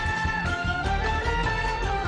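Upbeat stage music: a melody that slides between notes over a steady low beat.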